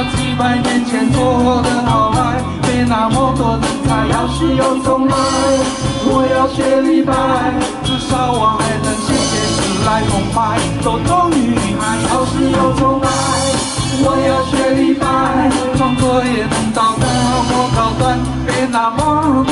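A man singing into a handheld microphone over amplified backing music with drums and bass and a steady beat.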